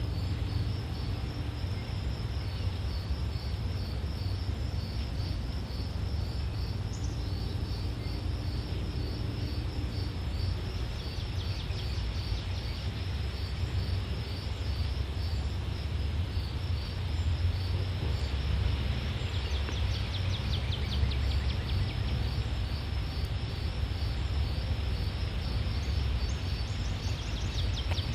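Insects chirping in a steady high pulsing rhythm over a constant low rumble, with faster trilling joining in twice.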